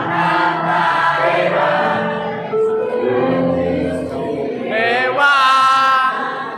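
A group of voices singing together like a choir, with a higher voice sliding up and holding a note about five seconds in.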